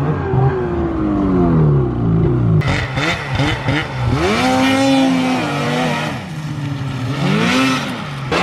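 Snowmobile engines revving, the pitch climbing and dropping repeatedly as the sleds accelerate and let off. The sound changes abruptly about two and a half seconds in, where the shot cuts to another sled.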